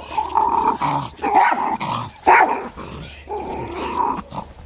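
Dogs barking at each other as a dog fight starts, in a run of irregular loud barks, the loudest about one and a half and two and a half seconds in.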